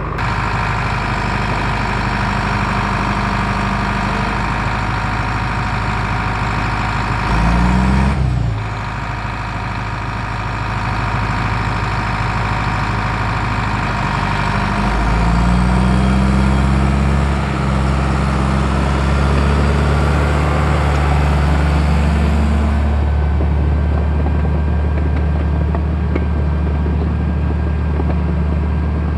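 Heavy-equipment diesel engine running steadily, revved up and back down briefly about eight seconds in, then held at higher revs from about halfway through before easing off near the end.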